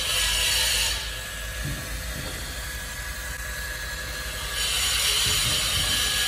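DeWalt DCE591 20-volt cordless dual-cartridge applicator gun's motor running as it pushes two-part joint filler through the mixing nozzle into a floor joint. It eases off about a second in and runs again from about four and a half seconds in, over a steady low background noise.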